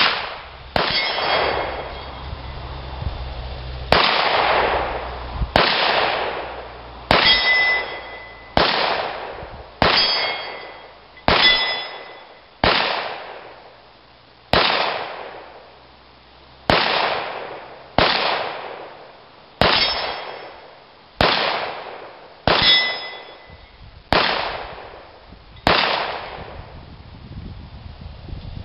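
Glock 17 9mm pistol fired in a slow, steady string, about one shot every second and a half. Many shots are followed by the ringing ding of a hit on a steel target.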